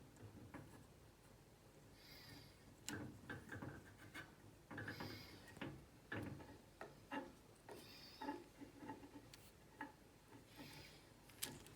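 Faint handling noises from hands fiddling with small parts: irregular light clicks, knocks and rubbing. A soft swish comes back about every three seconds.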